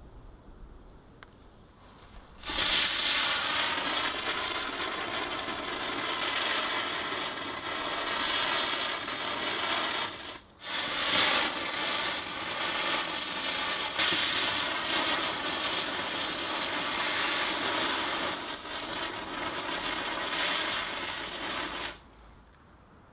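Consumer firework fountain spraying with a loud, rough hiss. It starts about two and a half seconds in, drops out briefly near the middle, and cuts off suddenly near the end.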